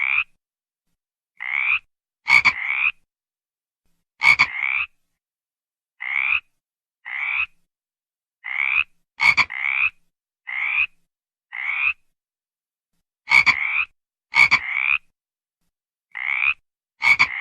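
A frog calling over and over: short raspy croaks of about half a second each, many opening with a sharp click, coming at irregular gaps of about a second with silence between.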